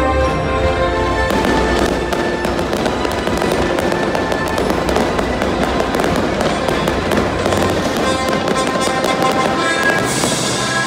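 Aerial fireworks going off: a dense run of cracks and pops that starts about a second in and keeps up, over music playing loudly underneath.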